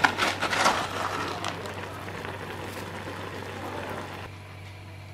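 Pot of instant noodles simmering in broth, bubbling and crackling, busiest in the first second, then settling to a steady soft hiss that drops away near the end.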